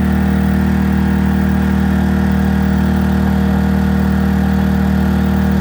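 Predator 2000 inverter generator's small single-cylinder four-stroke engine running at a steady speed with eco mode off, powering a 1500-watt electric heater without overloading.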